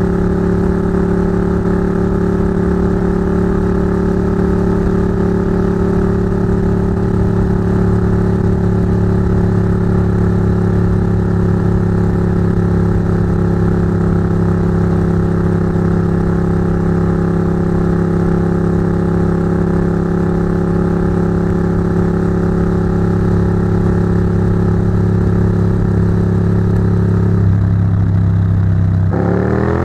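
Ducati GT1000's air-cooled V-twin running at a steady cruising speed through Termignoni exhausts, heard close above the pipes. Near the end the engine note shifts as the revs change.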